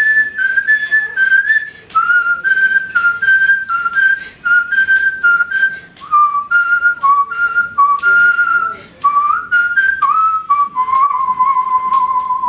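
A man whistling a Tamil film-song melody through pursed lips, in short clear notes that step down in pitch with a few upward slides, ending on one long held note near the end.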